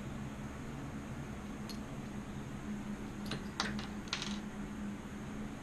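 Small metal carburetor parts clicking and clinking against each other and the screwdriver as the carburetor is taken apart by hand: one light click, then a quick cluster of four or five clicks a little past the middle. A steady low hum runs underneath.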